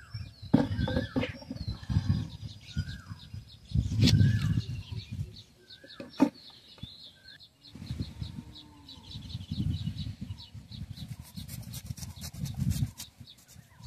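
Short bird chirps repeating every second or so, with a few sharp knocks and clatter of utensils being handled and bursts of low rustling. A quick run of ticks comes near the end.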